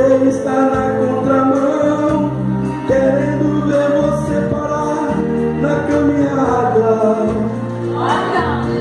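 Gospel worship music with singing: sustained keyboard-like chords over a steady bass line.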